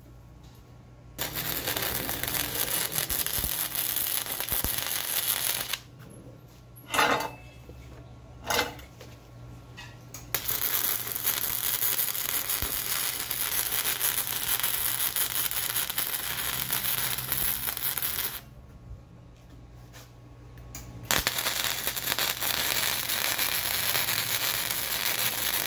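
Flux-core MIG welding arc from a Harbor Freight Titanium MIG 140: a steady crackling sizzle in three runs of welding, the arc stopping for a few seconds twice. Two short knocks fall in the first pause.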